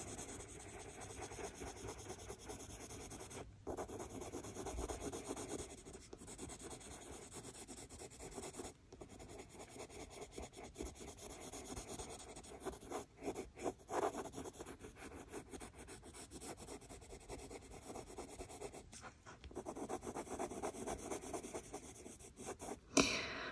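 A Prismacolor Cream colored pencil is rubbed over cartridge paper in quick, light, continuous scratchy strokes, layering cream over yellow. It stops briefly a few times between strokes.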